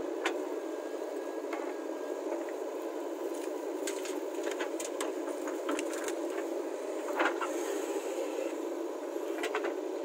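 JCB 3DX backhoe loader running steadily while it loads soil into a tractor trolley. From about four seconds in, scattered clicks and knocks sound as the bucket works and the earth drops.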